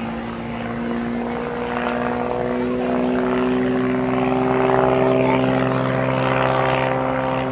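Aviat Pitts S-2C's six-cylinder Lycoming engine and propeller droning in aerobatic flight. The pitch steps up about three seconds in and the sound grows louder toward the middle, then eases slightly.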